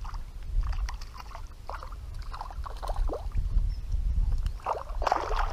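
Legs wading through shallow water, with irregular splashes and sloshing; the biggest splash comes about five seconds in. A steady low wind rumble on the microphone runs underneath.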